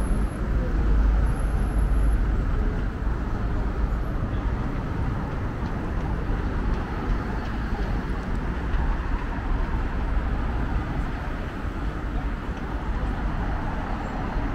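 City street traffic noise: a steady, continuous rumble of passing vehicles, heaviest in the first few seconds.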